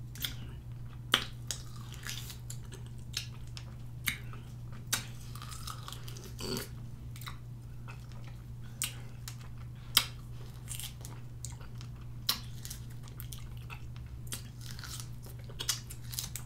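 A person chewing and biting into raw lime and lemon wedges: irregular wet smacks and sharp clicks, a few of them louder, over a steady low hum.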